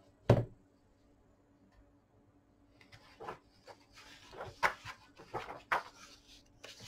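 Pages of a large hardcover book being handled: a single sharp thump just after the start, then from about three seconds in paper rustling as a page is turned and a hand slides across the glossy page.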